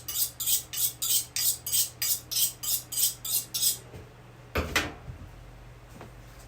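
A steel knife blade scraping in quick, even strokes, about three or four a second, which stop about four seconds in; a single knock follows a moment later.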